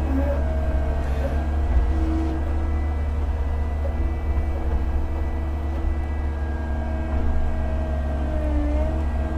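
Mini excavator's diesel engine running steadily as it digs a drain trench, with a whine from the hydraulics that shifts in pitch now and then as the arm works.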